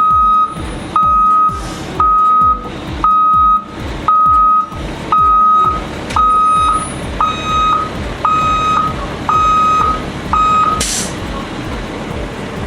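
Heavy truck's reversing alarm beeping about once a second, a single steady tone, over the truck's running diesel engine. The beeping stops near the end, followed by a short hiss.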